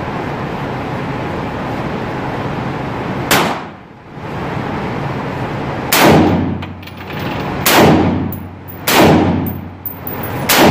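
Handgun shots at an indoor range: one shot about three seconds in, then a string of shots about a second and a half apart, each ringing on off the range walls, over a steady background rush.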